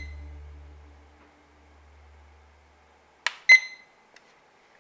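IKEA NOLLNING digital alarm clock's button being pressed: two quick clicks about three seconds in, the second with a short high electronic beep.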